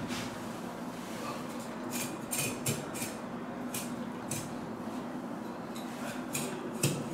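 Steel knife blade scraping and clicking against a crocodile's hard, scaly hide: short sharp strokes in a cluster about two to four seconds in and again near the end, over a steady low hum.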